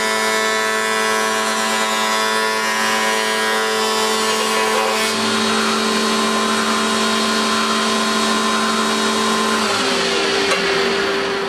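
Electric surface planer (jointer) running with its cutter block spinning, as a board is fed across it. The sound is steady and loud, with its tone changing about halfway through and a lower tone falling away near the end.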